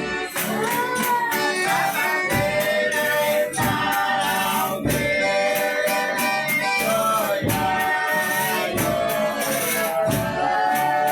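Folia de Reis company singing and playing: voices in bending, drawn-out lines over the steady beat of a tambourine and other instruments.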